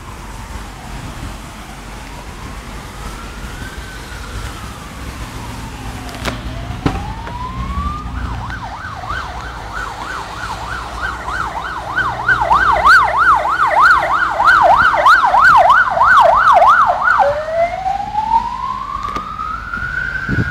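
Ambulance siren on slow wail, rising and falling, switching about eight seconds in to a fast yelp of about three cycles a second, then back to the wail near the end. It grows louder as it approaches, over a low road rumble.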